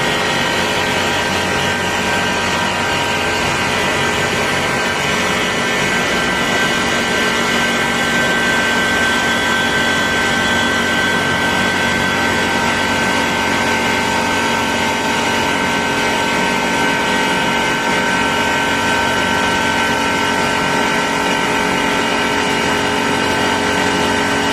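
HVAC chiller running steadily: an even, loud machine noise with several steady whining tones held throughout.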